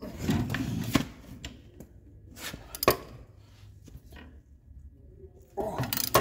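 Steel wrenches clinking and scraping on a tight 9/16 engine-mount bolt and nut: stretches of scraping and rattling with a few sharp metallic clinks, the sharpest about three seconds in.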